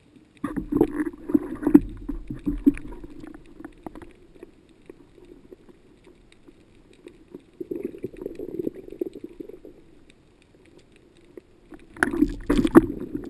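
Muffled underwater water-movement noise with knocks and rustling, heard through a camera in an underwater housing as a speargun and speared fish are handled. It comes in three bursts: one starting about half a second in, one in the middle, and one near the end.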